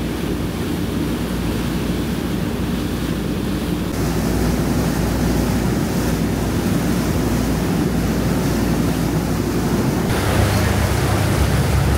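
Ride on a river boat: the engine's low rumble mixed with rushing water and wind buffeting the microphone, steady throughout. The sound changes abruptly twice, at about four and ten seconds in, as the footage cuts.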